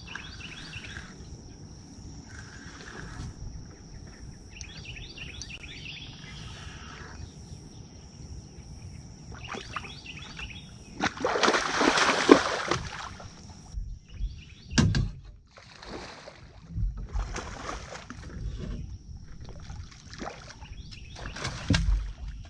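A fishing reel being cranked with light repeated clicking while a hooked fish is played in, then the fish splashing hard at the surface beside the boat about halfway through. A sharp hit and several shorter splashes follow as it thrashes near the boat to be landed.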